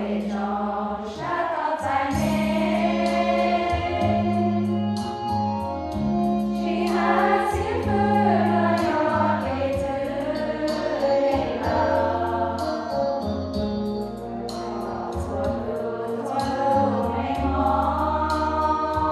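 Women's choir singing a hymn over long held low accompaniment notes that change every second or two.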